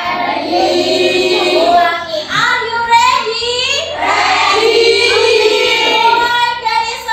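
A group of children singing a song together, with some long held notes.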